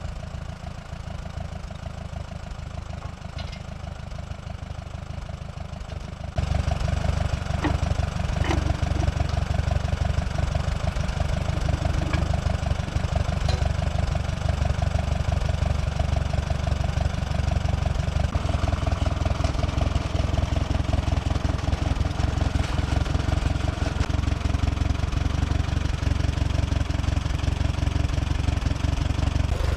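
Portable sawmill's engine running steadily, stepping up suddenly to a louder, fuller run about six seconds in, with a few sharp clicks shortly after.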